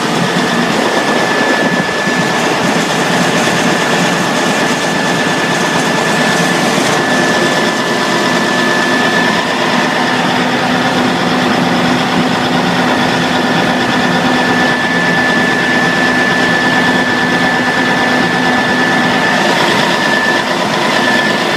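Peterson Pacific 4400 A horizontal grinder running steadily under engine power, with a high whine that drops out for a few seconds mid-way and returns.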